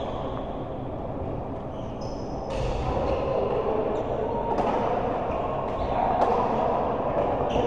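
Indoor sports-hall din: a steady wash of background noise with three sharp knocks of play, spaced roughly two seconds apart.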